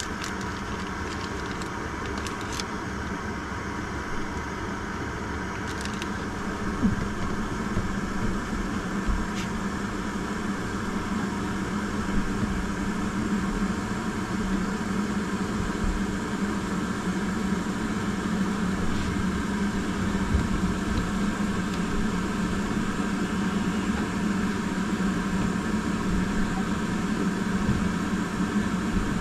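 Portable canister gas stove burner running with a steady hiss and low hum under a pot of water heating toward the boil. It grows slightly louder about seven seconds in.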